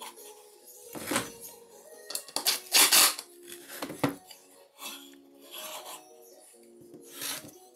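Wood being rubbed down by hand, a few irregular scraping strokes with the loudest about three seconds in, over soft background music.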